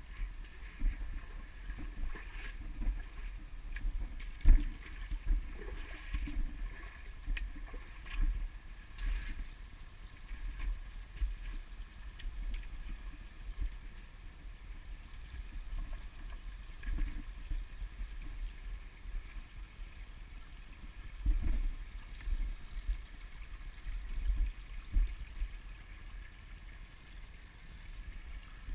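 Footsteps on stones and through shallow creek water, irregular knocks and splashes about once a second, over a low rumble on the microphone and a faint trickle of the stream; two heavier steps stand out, about four seconds in and again after twenty seconds.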